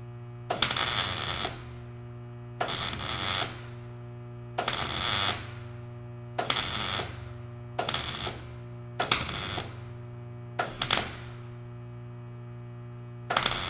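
MIG welder laying short stitch welds on thin car-body steel: eight crackling bursts of arc, each under a second, with a steady electrical hum from the welder between them.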